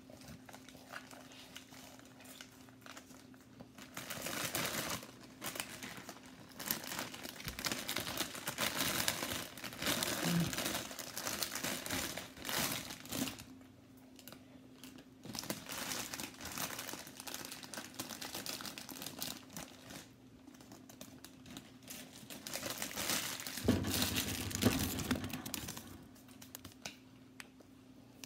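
Clear plastic popcorn bag crinkling and rustling as it is handled and tipped up to shake the last popcorn out. The rustling comes in irregular bursts of a few seconds each, with quieter gaps between.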